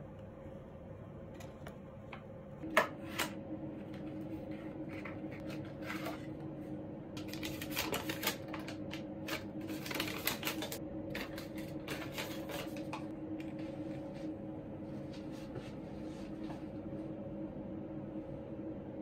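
Light paper crinkling and small clicks from handling a cardboard medicine box and unfolding its folded paper leaflet, busiest in the middle, with a sharp click about three seconds in. A steady low hum runs underneath from about three seconds in.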